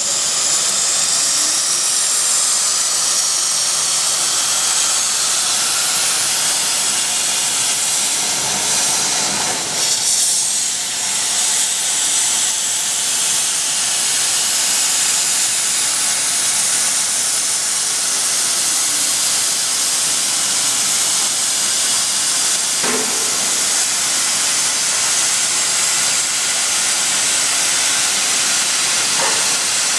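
Plasma cutting torch on a portable CNC cutting machine, hissing loudly and steadily as it cuts through metal.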